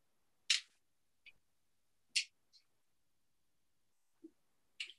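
Small carving knife slicing tiny chips out of a wooden spool: short, dry scrapes about half a second in, about two seconds in and near the end, with a few fainter ticks between.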